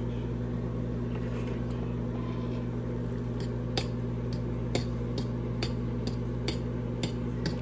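A metal fork stirring noodles and cabbage in a stainless steel pot of boiling water, clinking against the pot about ten times, roughly twice a second, from a few seconds in, over a steady low hum.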